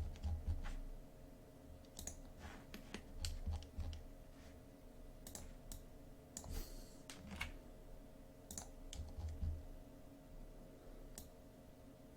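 Irregular clicking of a computer mouse and keyboard, a click every second or so, with a few soft low thuds over a faint steady hum.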